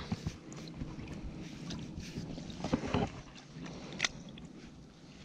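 Light water sloshing and a few short splashes and knocks as hands work a large bream out of a landing net held in the water, the sharpest about four seconds in.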